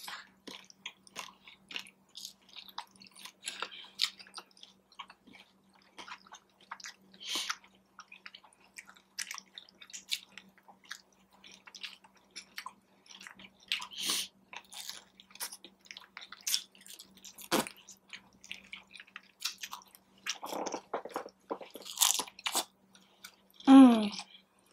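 Close-up chewing and biting of crunchy taco shells and tortilla chips: irregular crisp crunches and mouth sounds, over a faint steady hum.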